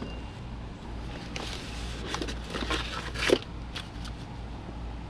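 Cardboard box and packing being handled: scattered rustles, crinkles and light knocks, the loudest knock a little over three seconds in, over a steady low hum.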